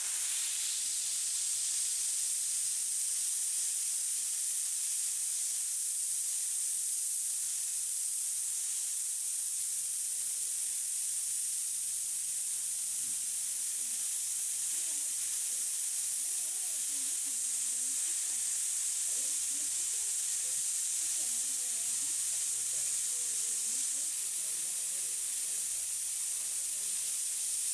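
Airbrush spraying paint: a steady, high hiss of compressed air rushing from the nozzle.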